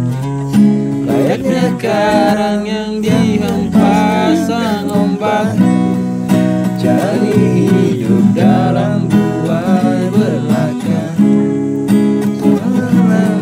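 Acoustic guitar strummed through a song, with a voice singing the melody.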